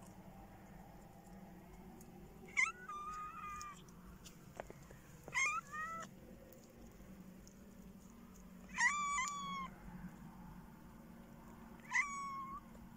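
Cat meowing four times, a few seconds apart; each call starts high and drops into a short held note.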